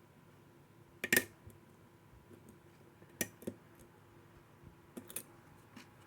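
Lock picks clicking and tapping in a registered-mail padlock during picking. There is one sharp click about a second in, a pair about three seconds in, and a couple more about five seconds in.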